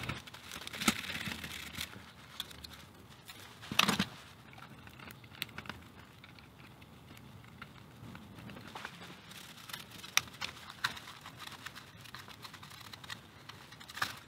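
Tissue and paper towel rustling and rubbing as the Philco T-66 pocket radio's case is wiped clean, with scattered light clicks and taps of the case and a plastic pick against the mat. A louder knock comes about four seconds in.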